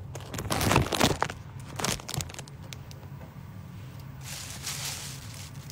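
Thin plastic carrier bags crinkling and rustling as hands open and handle them. The rustling is loudest in the first second or so, with a shorter burst about two seconds in, then quieter handling.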